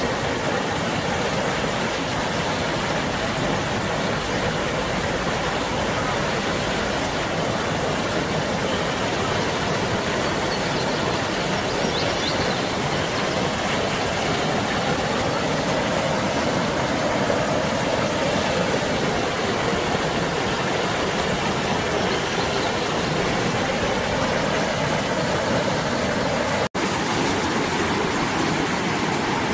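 Steady rush of a large waterfall, a dense even roar of falling water, breaking off for an instant near the end.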